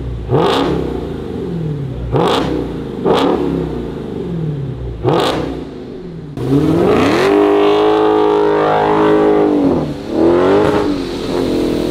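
Supercharged 6.2-litre HEMI V8 of a 2022 Dodge Challenger Hellcat Redeye through an exhaust with the mid resonators replaced by Vibrant bullet mufflers, rear resonators and stock tips kept. It is revved four times, each rev climbing sharply and falling back. Then the car pulls away under hard acceleration, holding a high pitch, dipping near the end and climbing again.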